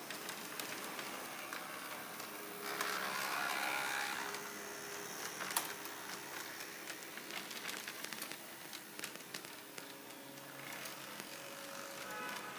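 H0-scale model trams running on the layout: small electric motors whirring and wheels clicking over rail joints and points. A louder, higher whine comes between about three and four seconds in, and a single sharp click near the middle.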